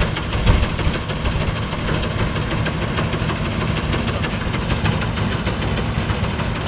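Massey Harris 735 combine harvester running steadily: engine and machinery with a dense, even clatter, and a brief louder bump about half a second in.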